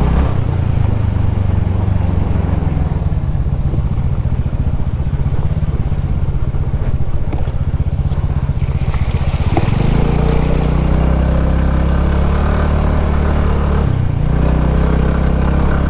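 TVS Ntorq 125 scooter's single-cylinder engine running under way, with a steady drone. About ten seconds in the engine note changes and grows stronger, and it dips briefly near the end.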